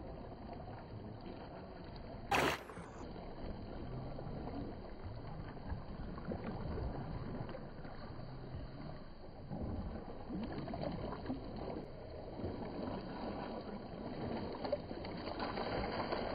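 Shallow sea water sloshing and splashing around swimmers, with a sudden sharp sound about two and a half seconds in and livelier splashing near the end.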